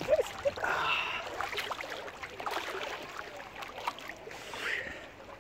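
Sea water splashing and lapping close to the microphone as a swimmer moves in the water, in irregular small splashes. A brief short vocal sound just after the start.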